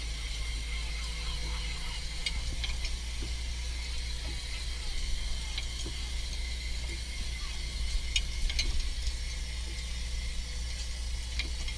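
A powered line hauler on a small fishing boat winding fishing line aboard, over a steady low engine hum, with scattered light clicks.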